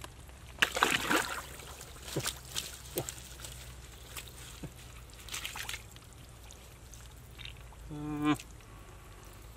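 Wet mud squelching and sloshing as hands and a blade dig into waterlogged mud, in several short bursts over the first six seconds. A brief low voiced call sounds near the end.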